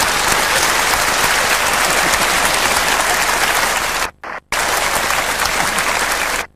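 Audience applauding steadily. The sound cuts out briefly about four seconds in and again near the end.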